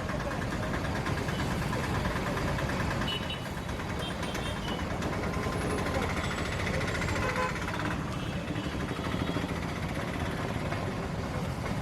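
Street traffic noise: vehicle engines running steadily, with faint voices in the background.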